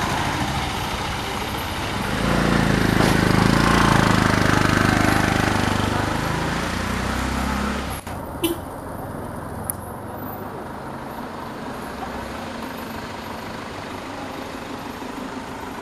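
A motor vehicle's engine passing close by, swelling to its loudest a few seconds in, then breaking off suddenly about halfway through. Quieter road noise follows, with two sharp clicks shortly after the break.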